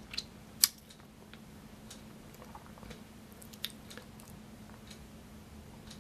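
Faint handling noise from an action camera carried low over a pebbly, seaweed-covered shore: a few scattered clicks and crunches, the sharpest about half a second in and another a little past the middle, over a faint steady low hum.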